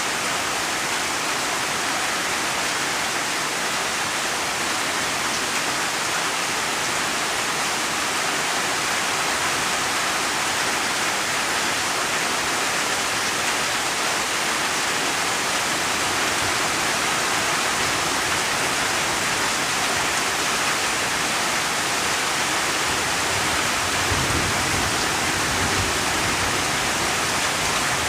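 Steady rain falling as an even, unbroken hiss with no distinct drops standing out. A soft low rumble swells in briefly near the end.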